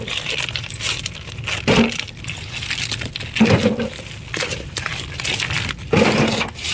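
Irregular hard clinks and knocks of loose broken brick, stone and concrete rubble being handled.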